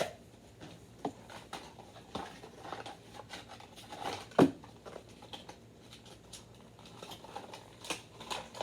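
Toy action-figure packaging being handled and opened: scattered rustles and small clicks of cardboard and plastic, with one louder knock about four seconds in.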